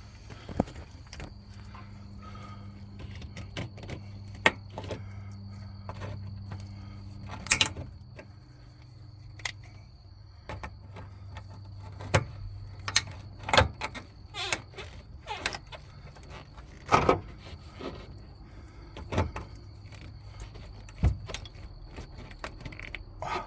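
Irregular metallic clicks, knocks and scrapes of hand tools working a stubborn spring hose clamp along a hose. A low steady hum runs underneath and stops about halfway through.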